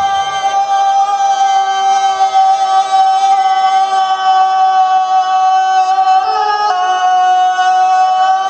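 One long, drawn-out shouted call held on a single note, typical of the prolonged commands that the guards give at the Wagah border flag-lowering ceremony. The note wavers slightly in pitch about six seconds in.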